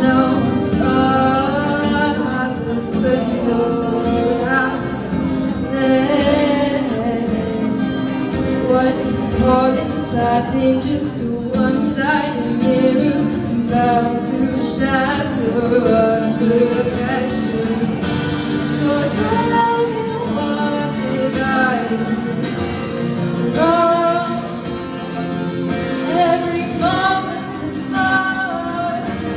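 A woman singing a slow melody to acoustic guitar accompaniment, performed live through a PA.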